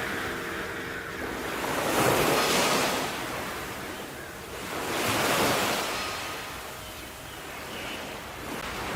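Sea waves washing onto a shore, two swells surging up and ebbing back a few seconds apart.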